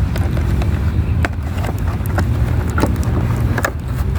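Packaging being handled as a doll is pulled from her box: scattered clicks and snaps of plastic ties and cardboard, over a steady low background rumble.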